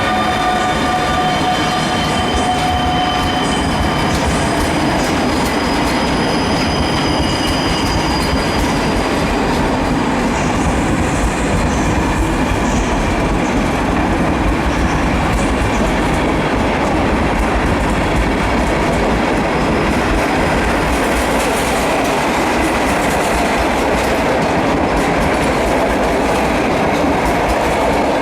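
A train rolling through a station at close range: a steady loud rumble and clatter of wheels on rails, with a few steady tones fading out in the first few seconds.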